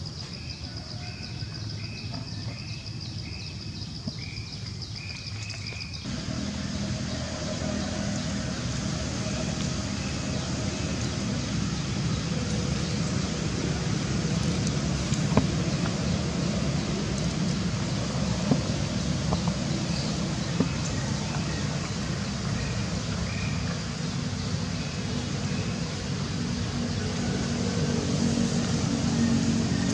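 Outdoor ambience: a high, fast-pulsing insect trill and a bird's repeated short chirps. About six seconds in, these give way suddenly to a steady rumbling hiss of background noise, with occasional faint chirps.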